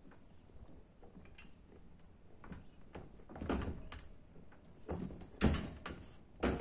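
Homemade steel Skinner gravity machine knocking and rattling as its top lever is rocked by hand and the pair of weights swings around the vertical shaft. The knocks come irregularly, with the loudest clanks in the second half, about three and a half and five and a half seconds in.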